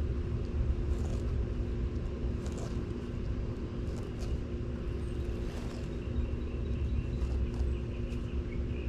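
Sulcata tortoise chewing raw pumpkin, with scattered faint crunches every second or so, over a steady low rumble and a constant hum.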